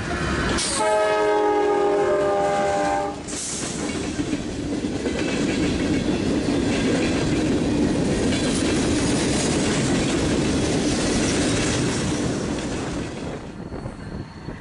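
A CSX freight locomotive's horn sounding one long multi-note blast for a road crossing as the lead diesel units pass close by. After about three seconds the horn stops, and the steady rumble and clatter of freight cars rolling past takes over.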